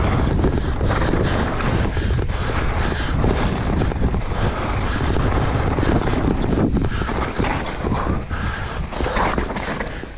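Wind rushing over the microphone with the rattle and knocks of a mountain bike ridden fast down a rough dirt trail.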